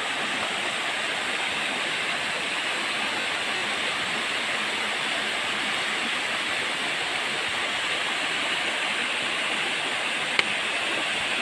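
Small waterfall splashing steadily down a rock face into a pool: a constant, even rush of falling water.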